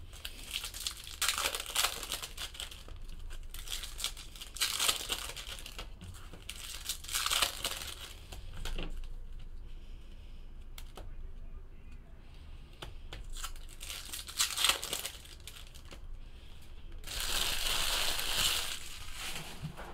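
Foil baseball-card pack wrappers being torn open and crumpled, with cards shuffled and stacked in between: a run of crinkly rustling bursts, the longest near the end.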